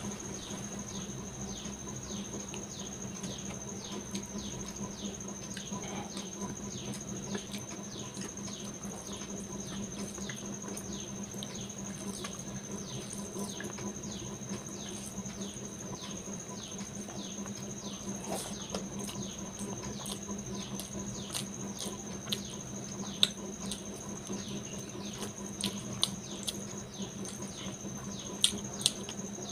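Fingers squishing and mixing rice with curry on a steel plate, giving a dense run of small wet, sticky crackles, with a few louder taps near the end. A steady high-pitched tone and a low hum run underneath.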